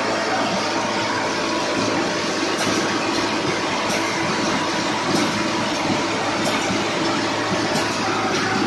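Wire mesh welding machine running: a steady low hum under dense mechanical rattle. From about two and a half seconds in, faint light ticks come roughly every half second to second.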